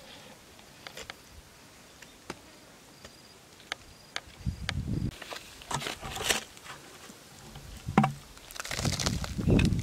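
Crunching and rustling of dry mud, dead wood and leaf litter being handled and stepped on, in several short bursts in the second half after a run of scattered small clicks. A faint, high insect buzz comes and goes in the first half.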